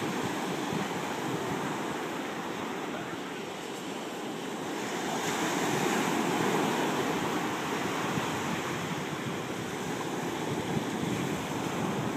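Ocean surf breaking and washing up on a sandy beach, a steady rush that swells louder about five seconds in, with wind on the microphone.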